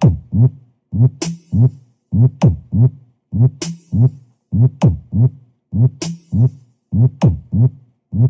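Electronic dance mix with booming bass-drum hits and falling-pitch bass sweeps in a tight repeating pattern, a sharp bright hit coming round about every 1.2 seconds. It is played loud through a pro audio sound system as a sound check.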